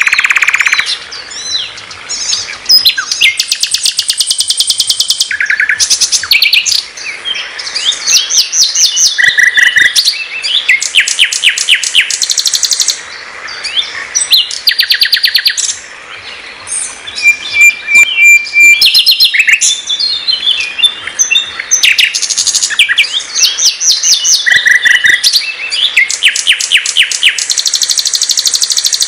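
Common nightingale (sikatan londo) singing a varied song: loud phrases of rapid repeated notes and fast trills, separated by short pauses.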